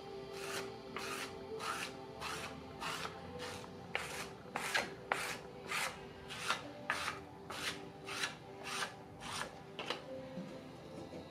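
Repeated scraping strokes across the surface of a soft clay slab as it is smoothed, a little under two strokes a second, stopping near the end. Soft background music runs underneath.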